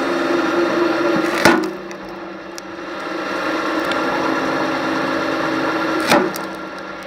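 Log splitter running with a steady motor hum while logs split with a sharp crack twice, about a second and a half in and about six seconds in.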